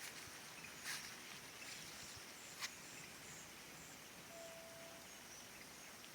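Faint open-field ambience: a steady quiet hiss with an insect chirping in short high-pitched pulses, about two or three a second, through the middle, plus two sharp clicks and a short steady note near the end.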